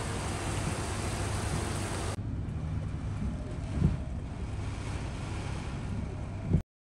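Heavy storm rain hissing steadily. About two seconds in it changes abruptly to a duller, lower mix of wind, rain and a bus's engine and tyres wading through floodwater, with a brief swell near four seconds. The sound cuts off just before the end.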